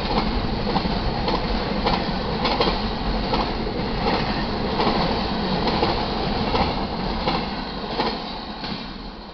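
Double-stack container train's freight cars rolling past, steel wheels clacking over rail joints amid a steady rumble, dying away over the last couple of seconds.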